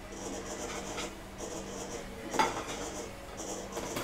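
Electric meat slicer running with a steady hum, its blade shaving slices in a regular scratchy rhythm of about one stroke a second. A sharp knock comes a little over two seconds in.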